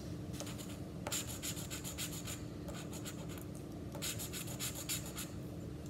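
A coin scratching the coating off a paper scratch-off lottery ticket in quick rasping strokes. There are two spells of scratching, one starting about a second in and one about four seconds in.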